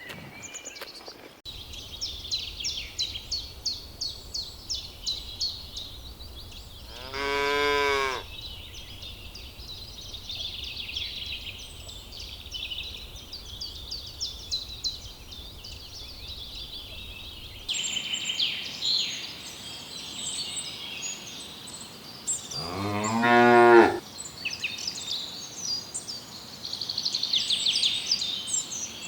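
A cow mooing twice: a short call, then a longer, lower and louder one about fifteen seconds later. Steady high-pitched chirping runs behind the calls.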